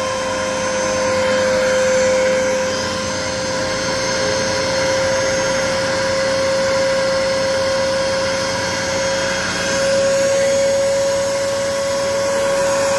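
Corner rounding machine for edge-banded panels running steadily with a high motor whine, its pitch stepping up slightly about nine and a half seconds in.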